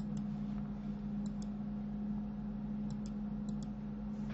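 Computer mouse clicking faintly a few times, mostly in quick pairs, over a steady low hum.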